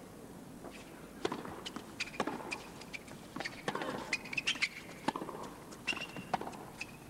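A tennis rally on a hard court: a string of sharp knocks from the ball being struck by rackets and bouncing, starting about a second in, with short high squeaks from the players' shoes among them.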